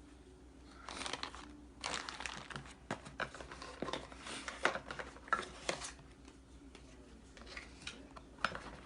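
Plastic packaging crinkling and rustling, with small clicks and knocks, as items are unwrapped and lifted out of a box; busiest in the first six seconds, then quieter, with a few more rustles near the end.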